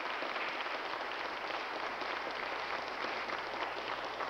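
A large group applauding steadily, a dense even clatter of many hands clapping, heard through a dull old archival recording.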